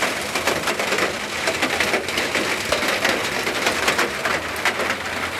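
Heavy rain pouring down and pattering on nearby surfaces: a steady hiss packed with sharp drop impacts.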